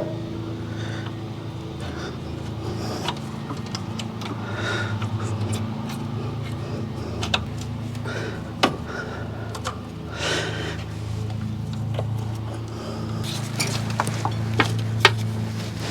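Scattered small clicks and scrapes of a pick tool working under a rubber heater hose to break its seal on a coolant elbow fitting, over a steady low hum.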